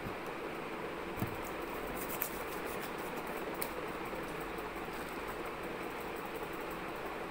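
Steady background room noise with a few faint, short taps and knocks as cardboard tubes are handled and set down on a hard floor.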